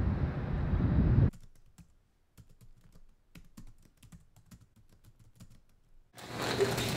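A steady, loud outdoor noise of wind and traffic fills the first second and cuts off abruptly. Then comes soft, irregular clicking of typing on a laptop keyboard in a quiet small room. A louder sound swells in near the end.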